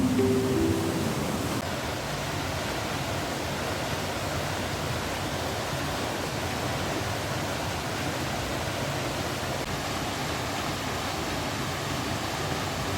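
Steady rushing of a mountain river. The tail of acoustic guitar music fades out in the first second or two.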